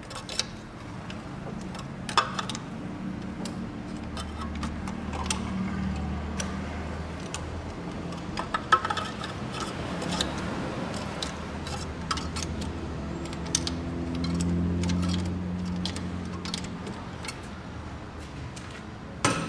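Long-handled socket wrench loosening and turning out spark plugs, with repeated metal clicks and clinks of the tool, over a steady low hum.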